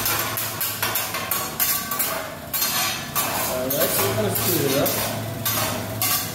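Metal spatulas clacking and scraping on a steel teppanyaki griddle in rapid, repeated strokes as rice and vegetables are chopped and pushed across the hot plate.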